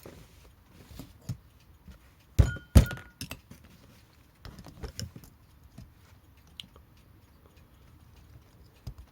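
Small metal clock parts and tools being handled and knocked on a work surface: scattered light clicks, with two loud knocks in quick succession about two and a half seconds in, the first leaving a short metallic ring.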